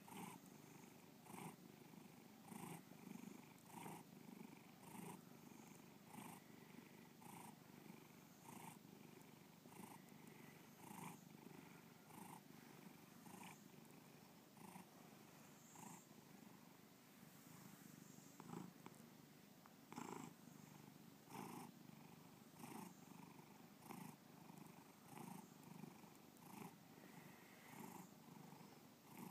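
Domestic cat purring steadily and faintly, the purr swelling in regular pulses a little under two times a second.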